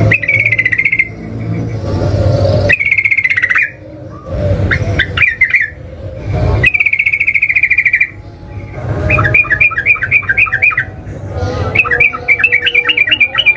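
Sooty-headed bulbul (trucukan) singing a series of loud, bubbly song phrases separated by short pauses. In the second half the phrases turn into runs of quick repeated notes.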